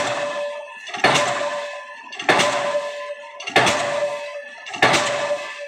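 Diesel pile hammer driving a precast concrete spun pile: a sharp blow about every second and a quarter, four in all, each followed by a metallic ring that dies away.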